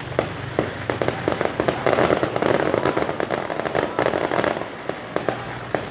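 Fireworks going off: a rapid run of sharp pops and cracks, thickening into a dense crackle from about two to four and a half seconds in.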